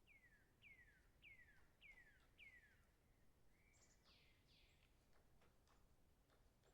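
Faint distant birdsong: five clear notes, each sliding down in pitch, about 0.6 s apart, followed a second later by a different, rougher two-part call. Faint irregular ticks run underneath, the pecking of a feeding woodpecker.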